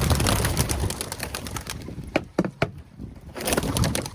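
Homing pigeons being let out of a transport basket, their wings flapping and clattering as they take off in a flurry, loudest at the start and again near the end.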